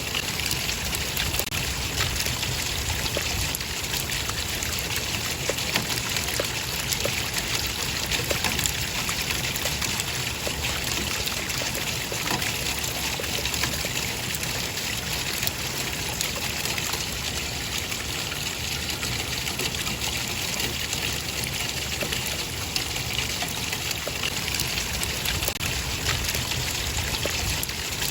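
Running water trickling and splashing steadily, a continuous even rush with many small splashy ticks and no pauses.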